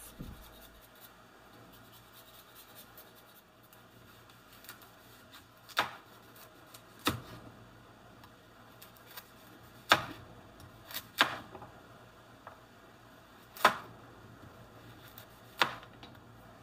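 Kitchen knife cutting through a carrot onto a wooden cutting board: about six separate sharp chops, one every second or two, with quiet in between.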